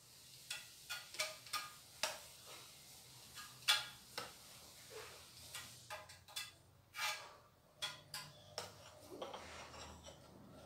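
Spatula scraping and clinking on a porcelain tile offcut while scooping and spreading catalysed polyester putty (massa plástica), in short irregular strokes; the loudest clinks come about 4 s and 7 s in.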